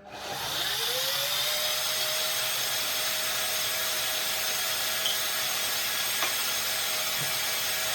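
A NutriBullet blender's motor spins up and runs steadily, puréeing hot cooked soup. Its whine climbs in pitch over the first second as it reaches speed, then holds steady.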